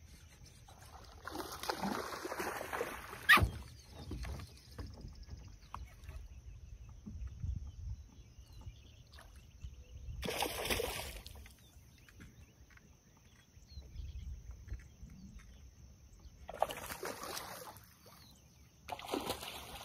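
Hooked bass splashing and thrashing at the water surface while it is fought to the boat, in several separate bursts, with a sharp click about three and a half seconds in.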